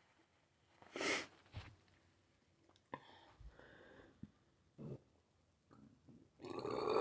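Close-miked eating sounds, mouth noises and a few sharp clicks, then a loud burp lasting about a second that starts near the end.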